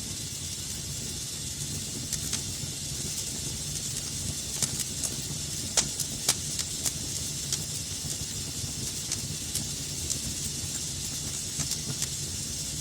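Wood fire burning in a fireplace: a steady hiss and low rumble with scattered sharp crackles and pops, two of the loudest pops about halfway through.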